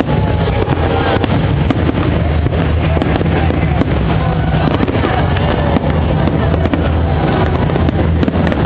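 Large fireworks display going off without pause: a dense, continuous mix of low booms and crackling bursts.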